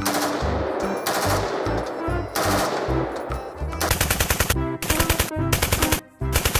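M16-style rifle gunfire: a few single shots, each ringing out, then rapid automatic bursts from about four seconds in.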